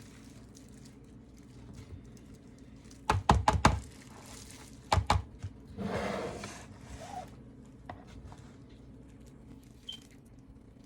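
A utensil knocking sharply against a bowl several times in quick succession about three seconds in, twice more about five seconds in, then a short scraping swish, while the flour, potato starch and seasoning dredge is mixed.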